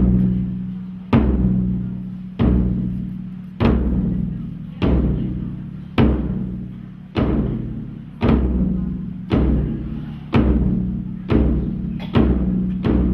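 A large temple drum struck in slow single beats, each ringing deep and dying away, about one beat every second, the beats quickening near the end.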